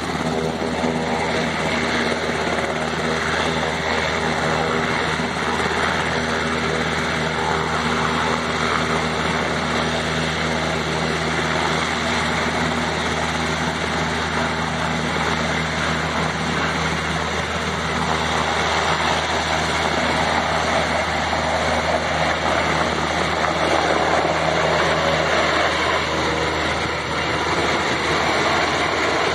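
UH-60 Black Hawk helicopter hovering low over water with a fire bucket slung beneath: the main rotor and twin turboshaft engines make a steady low hum with several tones under a rushing downwash noise. Near the end it climbs away with the full bucket; the low tones fade and the rush grows a little louder.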